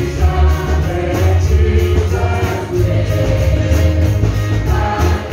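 Gospel song sung live into a microphone and amplified, a lead voice with other voices joining, over instrumental accompaniment with a heavy, pulsing bass.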